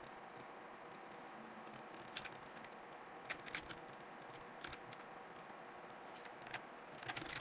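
Faint, scattered clicks of a computer keyboard and mouse, a few at a time with a small cluster near the end, over a low steady hiss.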